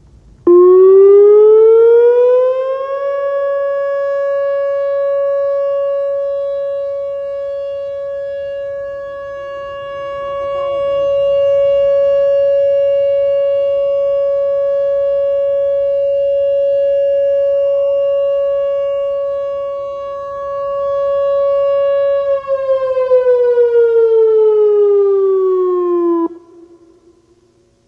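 Whelen WPS-3016 electronic outdoor warning siren sounding its steady alert tone. It winds up over about two seconds to a steady 560 Hz tone and holds it for some twenty seconds, growing louder and fainter as the speaker array rotates. It then winds down over about four seconds and cuts off.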